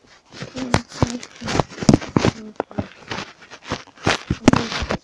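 Handling noise on a phone's microphone: a run of irregular knocks, rubs and scrapes as the phone is picked up, moved about and set in place.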